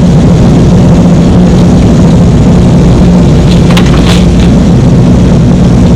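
Kubota KX080-3 excavator's diesel engine running steadily, with a few light knocks about halfway through.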